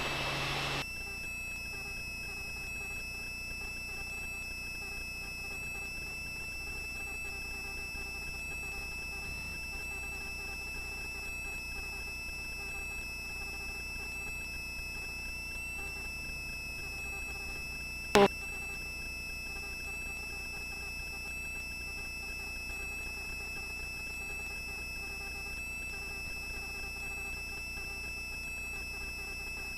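Steady electrical hiss and hum with a thin, unchanging high whine, as heard through a helicopter's headset intercom, broken once by a sharp click about 18 seconds in.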